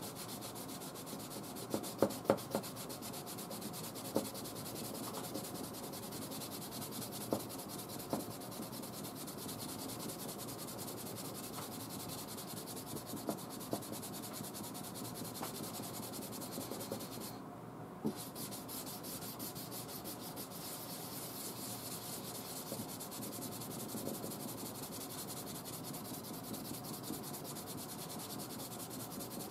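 Dry-sanding a paint run by hand with an 800-grit Tolecut sheet on a small block: a steady scratchy rubbing of the abrasive on the hard paint, with a few sharp ticks in the first half and a brief pause about two-thirds through.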